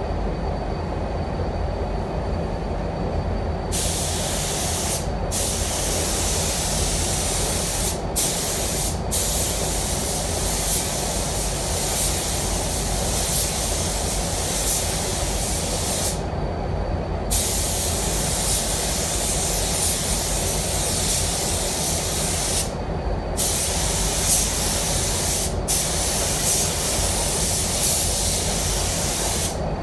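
Air spray gun hissing as waterborne basecoat is sprayed onto a car bumper, starting a few seconds in and broken by short pauses where the trigger is released between passes. Under it runs the steady low rumble of the paint booth's ventilation fans.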